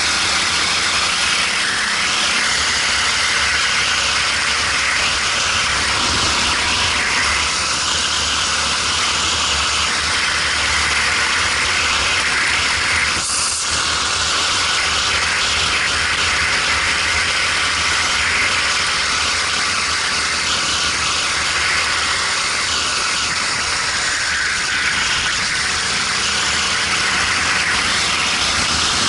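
Racing kart engine running, picked up by a helmet-mounted camera, under a steady loud rushing noise.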